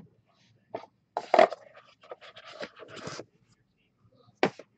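Handling noise from cards and packaging on the table: a sharp click, a rough scraping rush lasting about two seconds, then another sharp click near the end.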